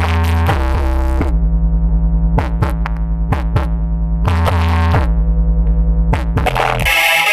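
Electronic DJ-remix music played loud through a big 'sound horeg' rig, with deep sustained bass notes, sharp drum-machine hits and gliding synthesizer tones. About a second before the end the bass drops out and a bright, high synth chord takes over.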